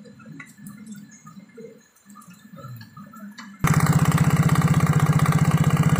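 Faint handling noises for about three and a half seconds, then a Yamaha Mio J scooter's single-cylinder four-stroke engine is abruptly heard running with a rapid, even rattling knock ('ngelotrok'). The knock comes from a spark plug that is not screwed in tightly enough.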